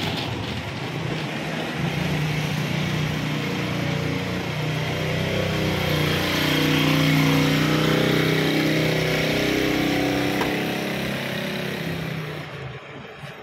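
A motor vehicle's engine running close by, swelling to its loudest about halfway through and fading near the end.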